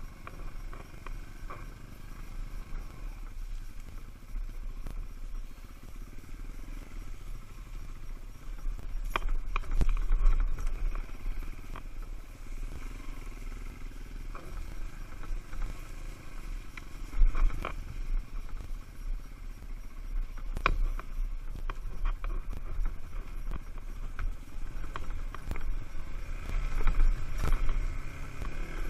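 Dual-sport motorcycle running at low speed over rough ground, heard from a helmet-mounted camera, with a heavy low rumble on the microphone. Scattered sharp knocks from bumps, the loudest about 17 seconds in.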